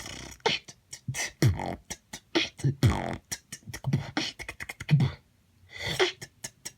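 Beatboxing: fast mouth-made percussion of deep kicks that drop in pitch, mixed with sharp snare and hi-hat clicks, with a short pause about five seconds in.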